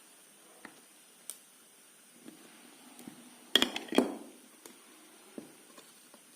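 Hard parts of a Bluetooth speaker being handled and knocked together during reassembly: scattered light clicks, with two louder knocks close together about halfway through.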